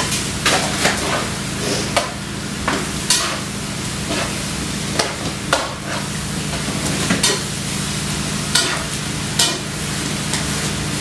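Chicken thighs frying in hot oil in a pan: a steady sizzle broken by irregular sharp pops and spatters.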